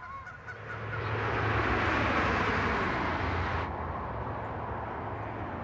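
A train crossing the brick railway bridge, a rushing rumble that swells and then drops away abruptly about two-thirds of the way in. A steady low hum runs underneath.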